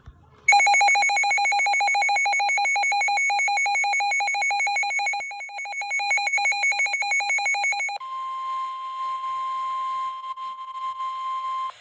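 Weather warning alert tones: a loud electronic alarm beeping rapidly, about ten beeps a second, for about seven seconds. It then changes to the steady single tone of the NOAA Weather Radio warning alarm, which cuts off suddenly near the end.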